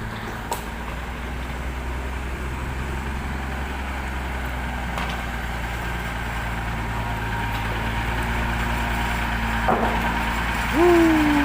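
Unimog truck's diesel engine running steadily as it tows a boat trailer, a low even hum. Near the end a person gives a short exclamation that falls in pitch.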